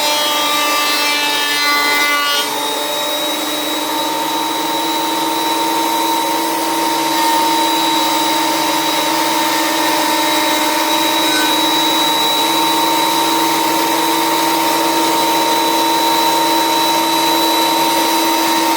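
Electric power tool running steadily, a motor hum with a high whine over a rushing noise, its pitch shifting once about two and a half seconds in.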